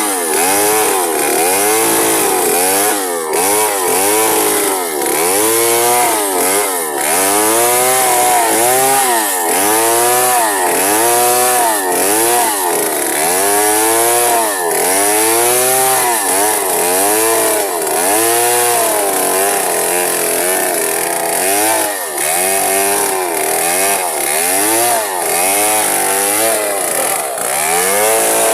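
Stihl gasoline chainsaw engine revving up and falling back over and over, about once a second.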